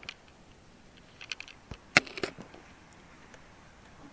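Pages of a Bible being turned and handled on a pulpit: a few soft rustles and small clicks, with one sharp click about halfway through.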